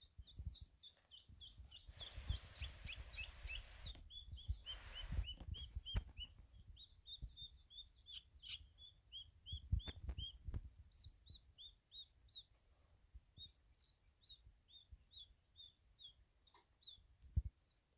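Baby quail chick peeping while it is held in the jaws of a milk snake: a run of faint, high, short peeps, each sliding down in pitch, two or three a second. Brief rustling in the first few seconds.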